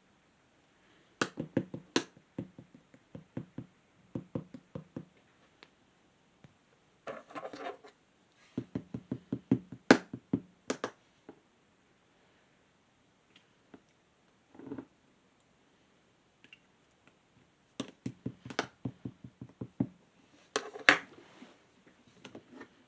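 Clear slime being squished and poked by hand, making clusters of sticky clicks and small pops in bursts separated by short pauses.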